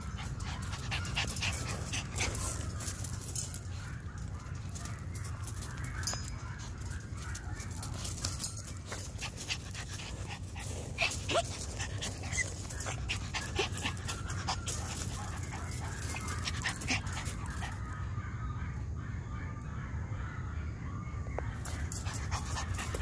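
Toy poodle puppy moving about on pea gravel: quick crunching clicks of gravel underfoot, with a few short puppy whimpers.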